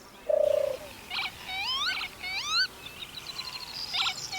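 Northern lapwing calls: several rising, slurred 'peewit' notes in a row, with a few short chips from other birds and a brief low steady note near the start.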